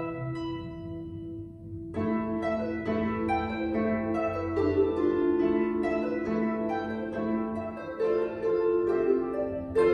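Solo Celtic harp playing: notes ring on and fade for about two seconds, then a new phrase of plucked notes and chords starts up and carries on.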